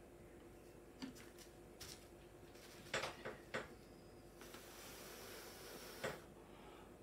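A few faint clicks and taps, then a second and a half of steady breathy hiss: a person blowing by mouth across wet acrylic paint on a canvas.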